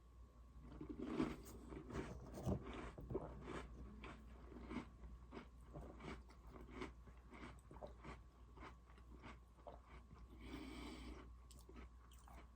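Close-miked chewing of Oreo cookies, with irregular crisp crunches one or two a second as the cookie breaks between the teeth.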